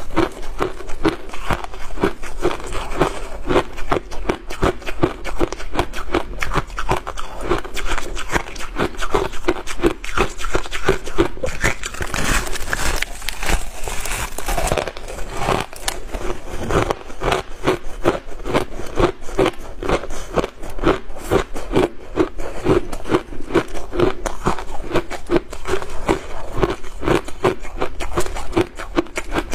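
Refrozen shaved ice being bitten and chewed: a dense, continuous run of sharp crunches and cracks, with a brighter, gritty stretch of crushing about halfway through.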